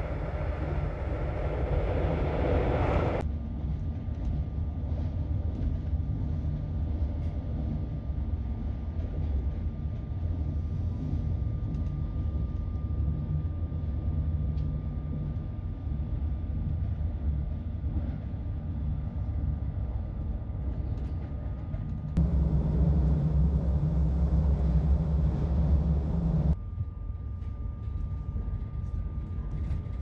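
Electric passenger train running, heard from inside the carriage: a steady low rumble with a faint steady whine above it. The sound changes abruptly about three seconds in and again around 22 and 26 seconds, with a louder, fuller rumble in between.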